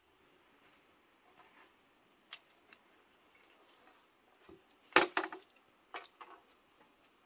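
A few light clicks, then a quick cluster of sharp knocks about five seconds in and two more about a second later.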